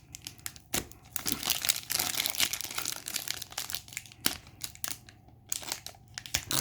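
Plastic trading card pack wrapper crinkling and tearing as it is opened by hand, in quick crackly bursts with a short pause near the end.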